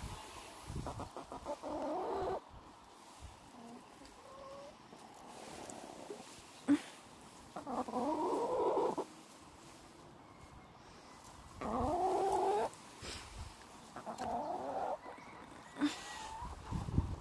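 Brown hens calling: four drawn-out calls of about a second each, with a sharp knock about halfway through.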